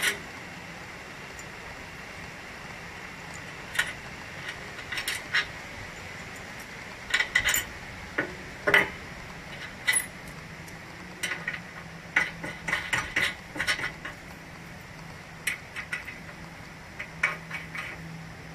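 Scattered metallic clinks and knocks, singly and in quick clusters, from the steel parts of a hitch-mounted scooter rack and a hand tool as the rack's upright post and top bar are fitted. A low steady hum runs under them.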